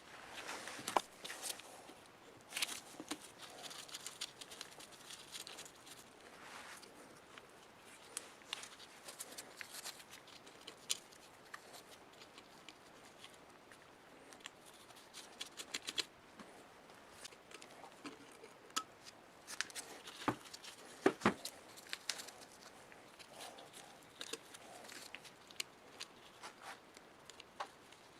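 Scattered light clicks, taps and scrapes of hand work on small metal parts, with a few sharper knocks, the loudest about 20 to 21 seconds in.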